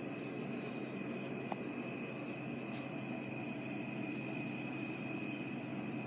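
Night insects, crickets, calling: a steady high trill with a higher pulsed call repeating about once a second.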